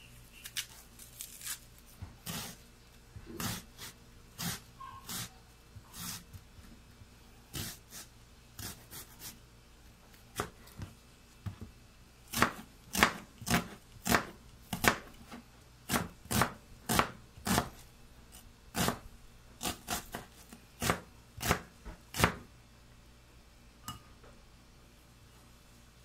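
Kitchen knife cutting a red onion on a plastic cutting board: scattered single cuts at first, then a steady run of chops, about two a second, in the second half, stopping a few seconds before the end.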